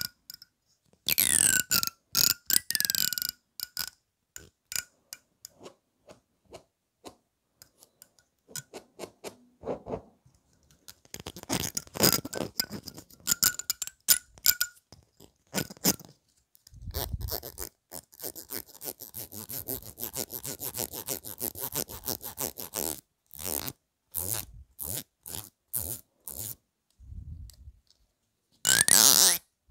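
Fingers plucking and running along the teeth of a fine-toothed comb, close to the microphone: quick clicks and ticks, in places packed into fast dense trains, with a few brief ringing twangs in the first seconds.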